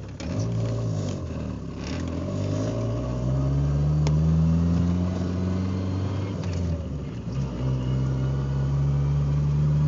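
Car engine heard from inside the cabin, pulling under acceleration with its note climbing, easing off briefly about seven seconds in, then pulling again.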